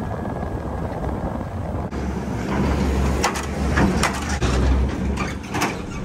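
Vehicle driving along a road: steady road and wind noise with a low rumble that gets heavier about two seconds in, and several sharp rattles or clanks in the second half.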